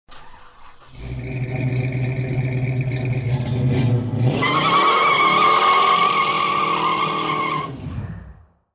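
Car engine running, then revving up about four seconds in, with a high tyre squeal held over the rev; the sound cuts off abruptly near the end.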